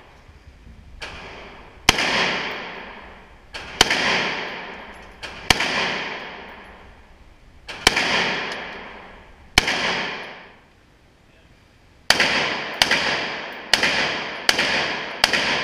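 AR-15 rifle fired shot by shot, about a dozen shots one to two seconds apart, each followed by a long echo off the concrete indoor range. A break of over a second comes about two-thirds through, then a quicker string of shots.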